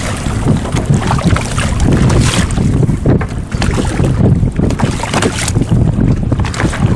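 Wind buffeting the microphone in a loud, gusty rumble, with choppy water splashing against a small boat.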